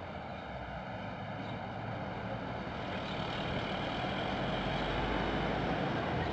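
Street traffic: a steady rushing vehicle noise with a low rumble, growing gradually louder as of a vehicle approaching.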